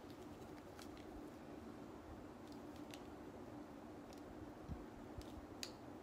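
Faint scattered clicks and light handling noise from a 2-inch Hot Tools clamp curling iron being worked through hair, with a couple of soft knocks in the second half, over a low steady hum.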